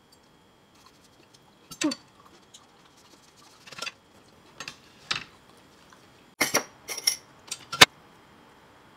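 Kitchen handling sounds: scattered short taps and clicks of a knife, tomato slices and utensils on a plate and glassware. A quick run of sharper clicks comes near the end, the last one the loudest.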